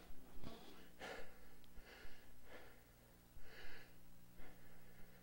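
A man breathing audibly into a microphone in a pause between phrases: several faint, short breaths over a low steady electrical hum.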